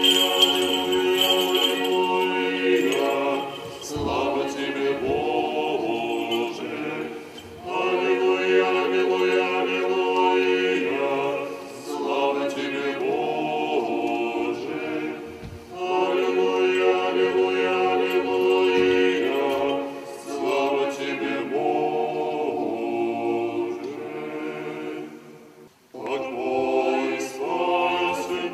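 Small mixed choir singing Russian Orthodox memorial-service (panikhida) chant unaccompanied, in phrases of about four seconds with short breaks between them.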